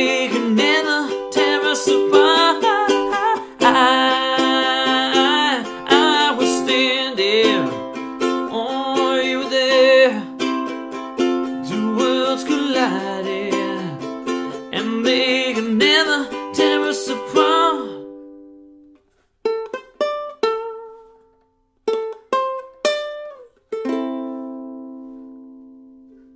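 Ukulele strummed steadily with a voice holding wordless, wavering notes over it, until the strumming stops about two-thirds of the way through. After a short pause a few single plucked notes follow, and a final chord rings out and fades as the song ends.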